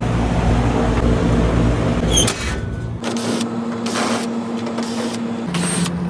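Package air-conditioner unit running with a steady hum. About halfway through, a rush of noise starts repeating roughly once a second over the hum.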